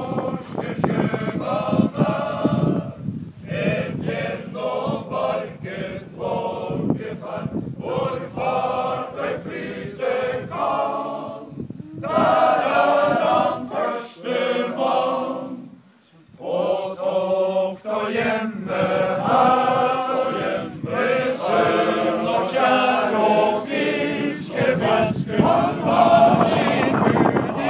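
Male choir singing a cappella in several phrases, with a brief near-silent break about midway.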